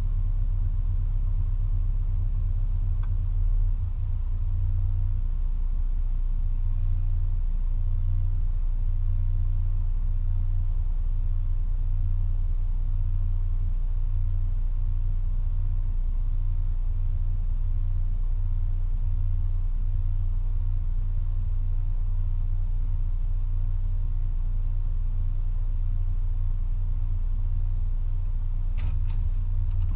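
Steady low rumble of a 2004 Toyota Tacoma pickup, with a few faint clicks about a second before the end.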